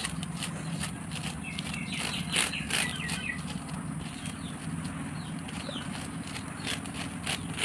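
Scattered light clicks and rustles as a bunch of fresh green leaves is swept over a wire grill grate above a wood fire, with a few faint bird chirps over a low steady hum.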